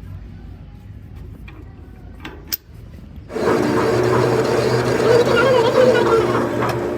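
A few clicks over a low hum, then a loud motor-driven machine starts abruptly about three seconds in and runs steadily.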